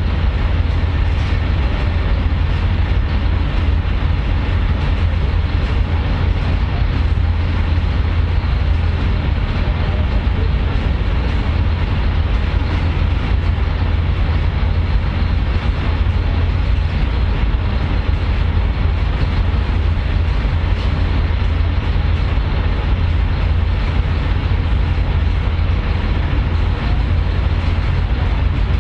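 A public transport vehicle in motion: a steady, heavy low rumble with even running noise over it and no sharp events.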